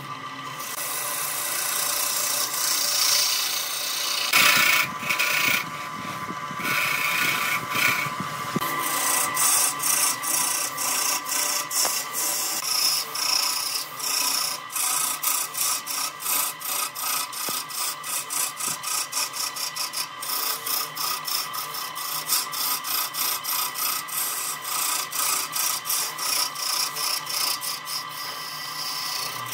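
Wood lathe spinning a segmented wooden vase while a turning tool cuts into it, a continuous scraping with a steady high tone under it. From about nine seconds in, the cut comes as regular strokes of about four a second.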